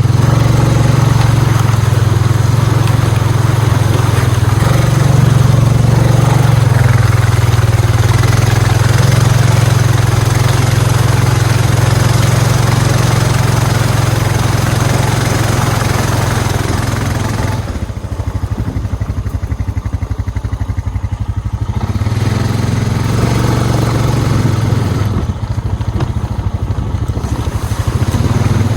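Honda Rubicon 520 ATV's single-cylinder engine running under throttle. The throttle eases off twice, about three-quarters of the way through and again shortly after, dropping the engine to a lower, quieter note before it picks up again.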